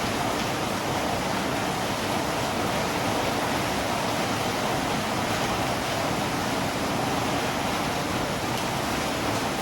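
Steady rain falling: an even, unbroken hiss with no separate drops or thunder standing out.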